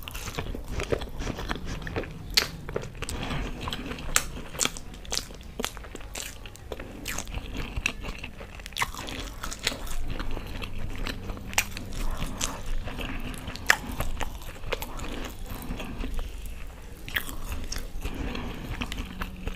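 Chewing and crunching of a fried pakoda coated in green chutney, with many irregular sharp crunches.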